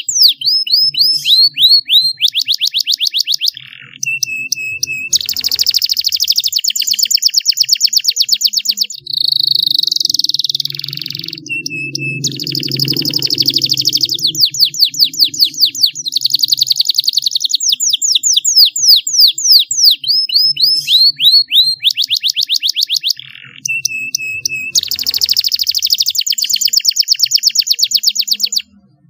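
Domestic canary singing: fast trills of quickly repeated falling notes, short held single-pitch notes and a buzzy rattle, in phrases broken by brief pauses. The song stops just before the end.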